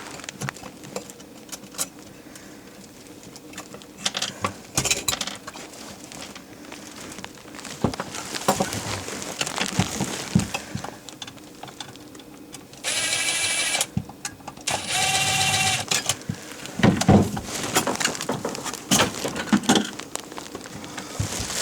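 Cordless screw gun running in two short bursts of about a second each, about two-thirds of the way through, among scattered knocks and clatter of tools being handled.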